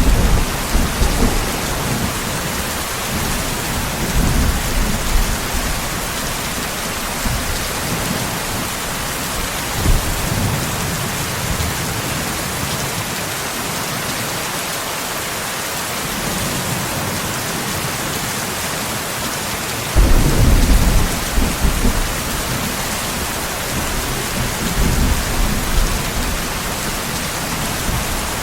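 Steady rain falling in a thunderstorm, with thunder rumbling several times. The loudest roll starts suddenly about twenty seconds in.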